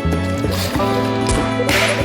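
Background music with sustained tones over a held bass note, with short whooshing noise swells about half a second in and again near the end.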